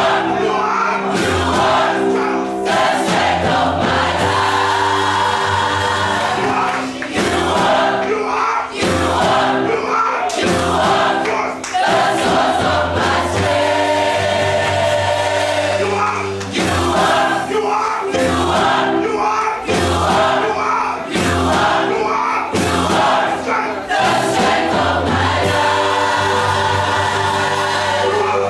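Church choir singing a gospel anthem in harmony over instrumental accompaniment with a steady bass line, the voices holding long chords.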